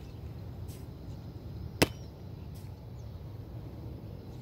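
Steady low outdoor rumble with a single sharp slap about two seconds in.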